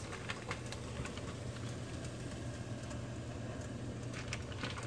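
Plastic bag around raw chicken breasts crinkling in short scattered bits, more of them near the end, over a steady low hum and a pot of water boiling on the stove.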